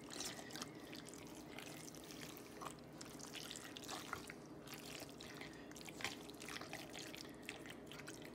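Metal spoon stirring raw chopped pork in a wet red chile-and-vinegar seasoning in a metal pot: faint wet squelching with light scattered clicks.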